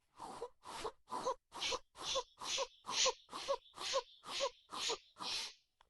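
A person blowing short, breathy puffs of air onto glue-stick slime to dry it, about a dozen puffs at roughly two a second.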